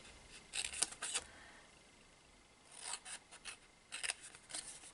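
Scissors cutting cardstock in short snips, in three quick clusters with pauses between, trimming and angling glue tabs.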